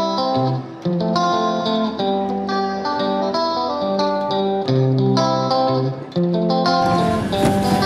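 Background music, a tune of plucked notes changing about every half-second. About seven seconds in, a noisy hiss joins underneath.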